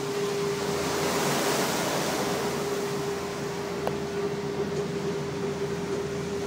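Steady drone of a ferry underway, heard inside its cabin: a constant engine hum under a rushing wash of water. The rush swells briefly about a second in.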